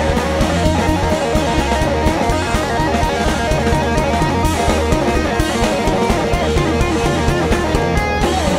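Live rock power trio playing loud and steady: electric guitar over bass guitar and a drum kit, in a psychedelic hard-rock instrumental jam.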